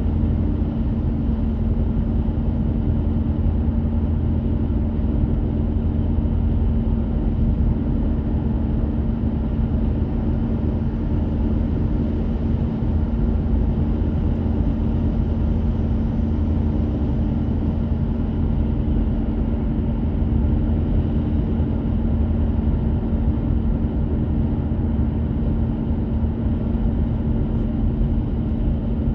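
Car driving at a steady speed: an even, low rumble of engine and tyres on the road with a constant low hum, unchanging throughout.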